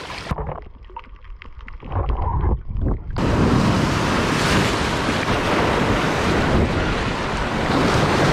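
Sea surf breaking and washing over a rocky shore, with wind buffeting the microphone, cutting in suddenly about three seconds in. Before that comes a quieter, muffled stretch with scattered clicks and knocks.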